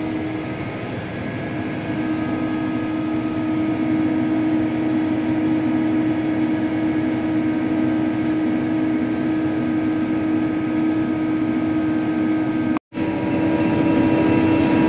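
John Deere track tractor's engine running steadily under load as it pulls a planter, heard from inside the cab as an even, humming drone. The sound drops out for a split second near the end.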